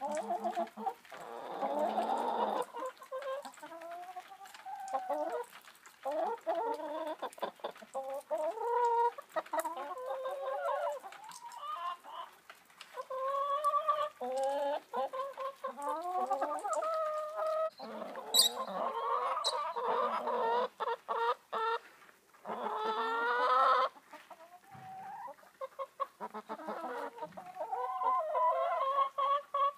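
A flock of hens clucking and calling to one another: a near-continuous run of short, bending clucks, with a few longer drawn-out calls mixed in.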